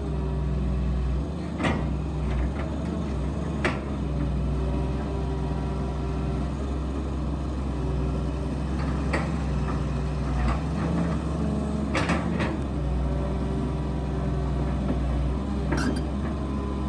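Excavator's diesel engine running steadily under work, with several sharp knocks and clanks from the machine as it digs at a tree stump.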